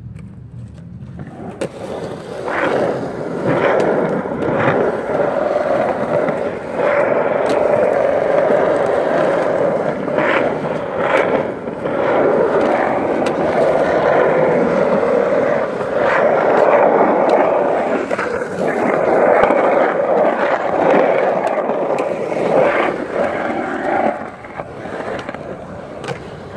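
Skateboard wheels rolling over smooth concrete ramps and transitions: a loud, continuous rolling rumble with occasional sharp clacks of the board.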